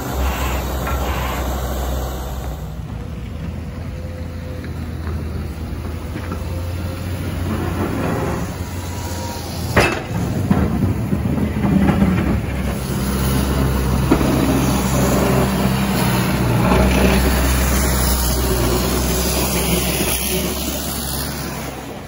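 Snow-clearing machines working close by: the engine of a sidewalk tractor pushing snow with its front plow, then a large plow blade on heavy equipment passing. The engines drone steadily, with a sharp bang about ten seconds in.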